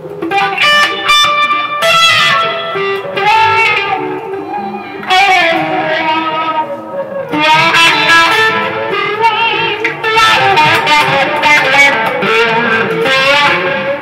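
Electric guitar being played, a run of picked notes with some notes wavering in pitch.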